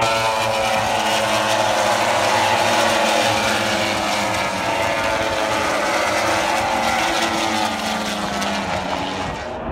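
A pack of MotoGP racing motorcycles passing at race speed, several high-revving four-stroke engines sounding together, their pitches overlapping and rising and falling as the riders shift gears.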